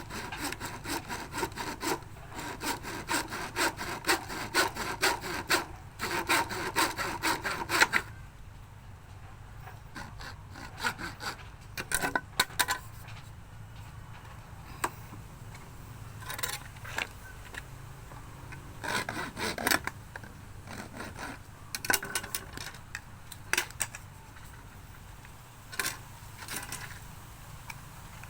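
Hand sawing: quick, steady back-and-forth saw strokes for about eight seconds, then a few short runs of strokes with pauses between them.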